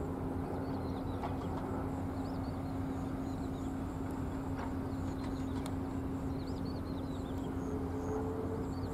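Steady low engine drone and rumble from afar, with small birds chirping in short bursts several times. Near the end a second, higher engine tone comes in and slowly rises as a jet airliner approaches.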